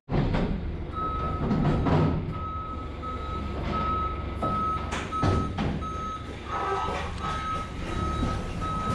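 Forklift backup alarm beeping evenly at about two beeps a second, starting about a second in, over a low engine rumble and a few knocks.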